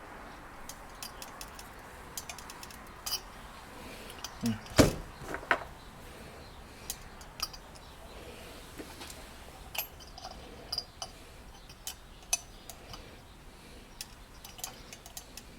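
Scattered light metallic clicks and clinks from small metal parts and tools being handled on a workbench, with one sharper knock about five seconds in.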